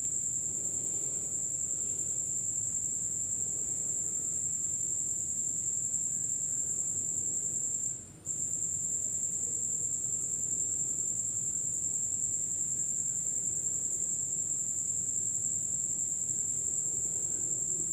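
A steady high-pitched trill runs on unbroken except for a brief gap about eight seconds in, over a fainter low hiss.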